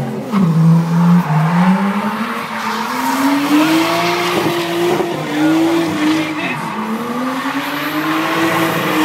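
Nissan Skyline doing a burnout: the engine revs up and down repeatedly, its pitch falling about half a second in, then climbing and dipping several times, over the hiss and squeal of spinning tyres.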